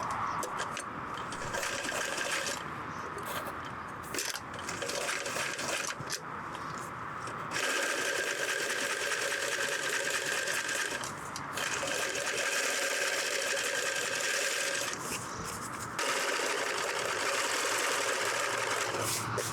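Electric sewing machine stitching in runs of a few seconds, stopping briefly between runs and starting again.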